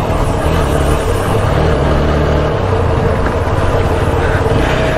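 Motorcycle engine running steadily at low road speed under a steady rushing noise, heard from the rider's seat on a gravel dirt track. The engine note drops about halfway through as the bike slows.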